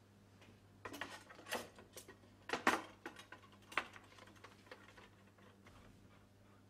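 Metal frame clamp parts clattering and clicking as they are fitted around a glued mitred wooden frame: a run of sharp knocks, loudest about two and a half seconds in, then lighter ticks as the clamp is tightened. A faint steady low hum runs underneath.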